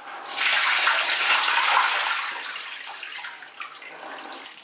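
Soapy laundry water poured out of a plastic basin onto a tiled floor: a splashing gush that starts just after the beginning, is loudest for about two seconds, then tapers off.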